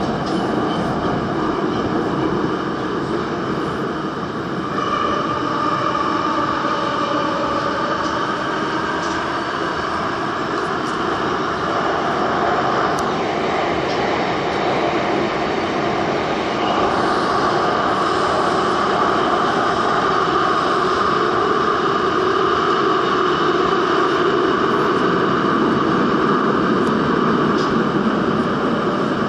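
Daejeon Metro Line 1 subway train running at speed through a tunnel: a steady, loud rumble of wheels on rails with a whining tone over it. The whine's pitch dips and comes back up about halfway through.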